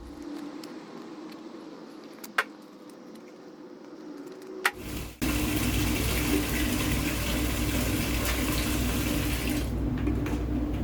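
Water running hard from a tap into a sink. It starts abruptly about five seconds in, after two sharp clicks, and rushes on steadily.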